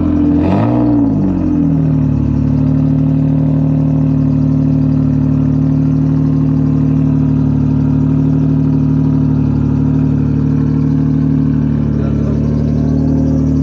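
Turbocharged Nissan 350Z V6 with a straight-pipe exhaust idling. Its revs rise and fall back once about half a second in, then it holds a steady idle. The engine is running on a basic start-up tune.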